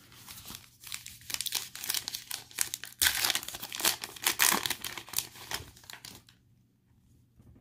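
Foil wrapper of an Illusions football trading-card pack crinkling and tearing as it is opened by hand. The crackling is loudest about three to five seconds in and stops about six seconds in.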